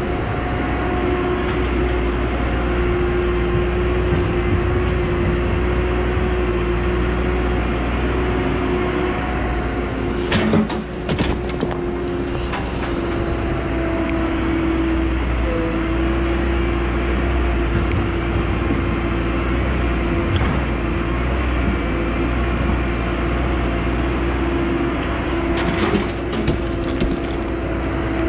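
Caterpillar 314E LCR excavator's diesel engine running steadily with a steady whine over it as the boom and bucket move. A few clanks about ten seconds in and again near the end.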